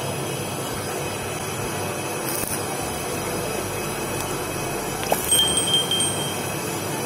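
Stick-welding arc crackling and hissing steadily while welding onto a broken bolt stub to extract it. About five seconds in there is a sharp click, then a brief high chime.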